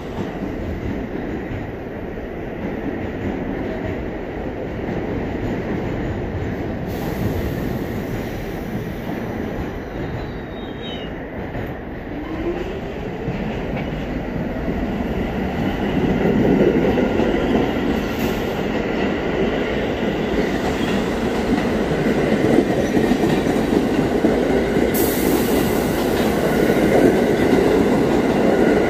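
New York City Subway R46 train running along the track beside the platform: a steady rumble of steel wheels on rail with clickety-clack over the joints and a faint high wheel squeal. It grows louder about halfway through.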